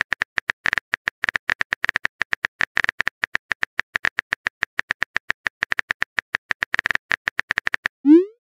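Rapid, uneven keyboard-tap clicks of a texting app's typing sound effect, one click per character as a message is typed out. Near the end they stop, and a short rising whoosh marks the message being sent.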